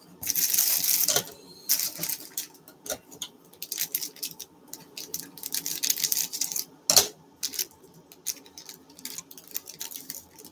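Plastic noodle packaging crinkling and rustling in the hands in irregular bursts, with one sharp snip about seven seconds in as scissors cut the wrapper open.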